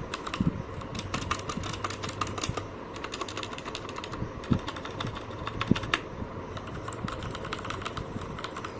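Keys being typed on a mechanical keyboard with Cherry MX Red linear switches: a run of rapid keystrokes with no click, only the plastic clack of keys pressed and released. A fast flurry comes about a second in, and steadier typing follows.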